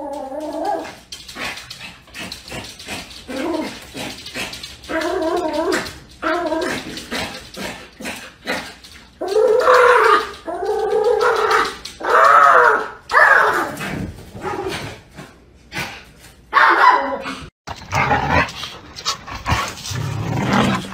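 Small white fluffy dog standing up at a glass door and crying out in a long string of pitched calls, some short, some drawn out, their pitch rising and falling.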